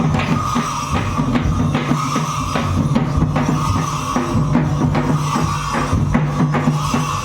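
Drum-driven dance music with a steady run of beats, and a high tone held continuously above the drumming.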